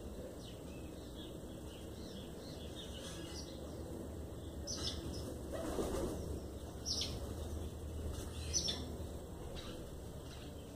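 Sanhaçu tanagers at a papaya feeder: a few short, sharp high chirps spread through, and a brief flutter of wings about halfway.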